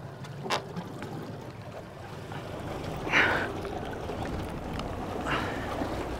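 Water lapping and sloshing against the hull of a drifting fishing boat, with three short splashes or knocks; the loudest comes about three seconds in.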